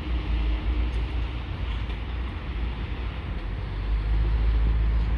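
Road traffic: cars and a pickup driving over a level crossing, above a heavy low rumble.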